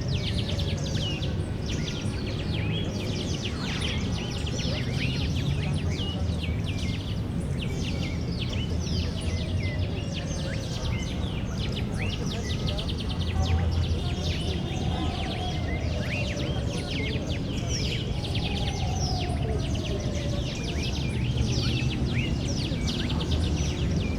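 Many small birds chirping and twittering in quick, short notes throughout, over a steady low background rumble.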